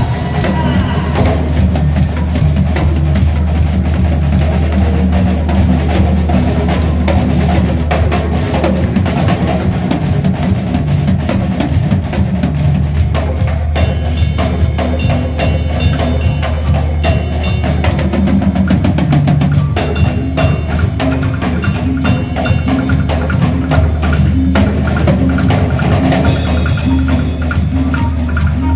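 Live drum kit solo: fast strokes across drums and cymbals, played over sustained low bass notes from the band.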